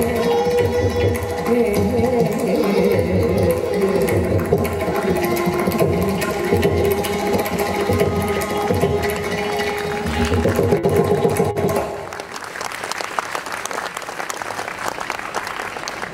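Carnatic ensemble of voice, violin, mridangam and ghatam ending a piece on long held notes over busy drum strokes. About twelve seconds in the music stops and audience applause follows.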